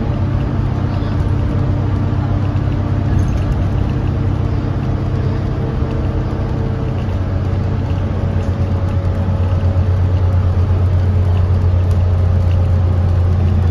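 Inside a New Flyer XN40 compressed-natural-gas city bus while it drives along: a steady low engine and drivetrain hum with road noise. It gets a little louder about two-thirds of the way through.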